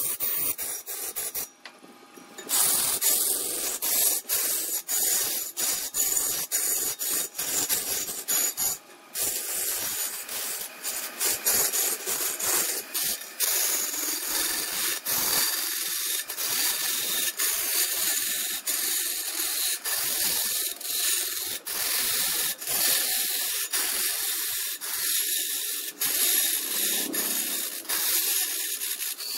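A tool working against red incense wood spinning on a wood lathe: a steady high hiss with many small clicks, breaking off briefly about two seconds in and again near nine seconds.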